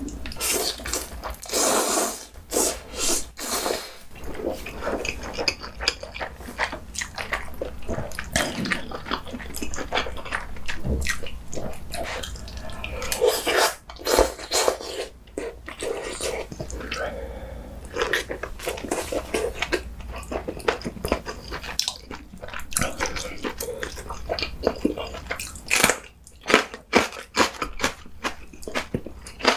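A person eating instant ramen noodles close to the microphone: noodles slurped in, then wet chewing with many small mouth clicks, and a longer slurp about halfway through.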